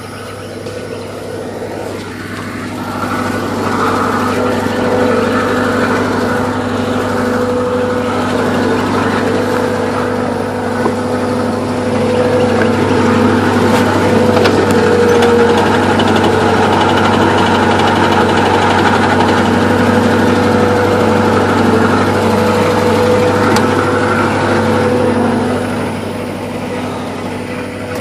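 A motor engine running steadily. It builds up about three seconds in, holds a loud, even drone, and eases off near the end.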